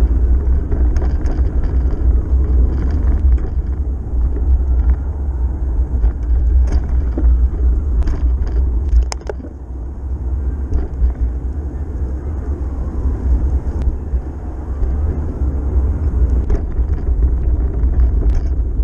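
Steady wind and road rumble on the microphone of a camera riding on a moving bicycle, with scattered light clicks and rattles, a few in quick succession about halfway through.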